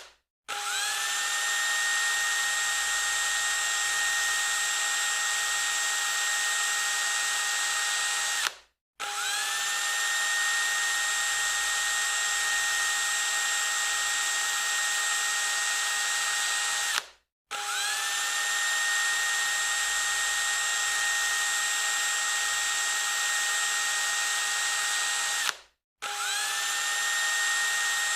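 Electric drill running at full speed with a steady high whine. It cuts off and restarts four times, each start spinning up over about half a second, and runs about eight seconds each time.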